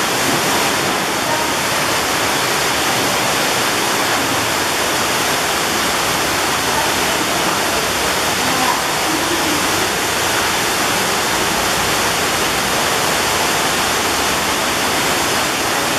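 Loud, steady rushing of a waterfall pouring into a pool.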